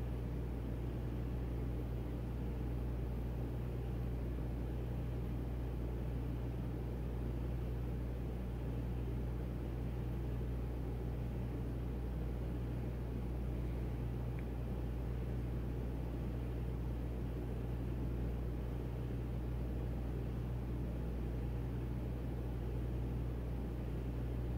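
Steady low machine hum with a constant rumbly haze and no change in level: background equipment or ventilation running.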